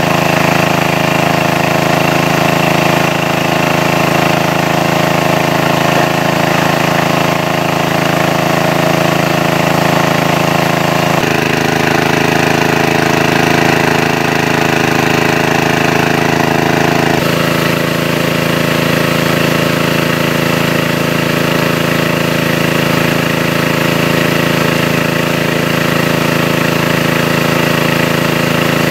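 Engine of a large-capacity water pump running steadily; its tone changes abruptly twice, about 11 and 17 seconds in.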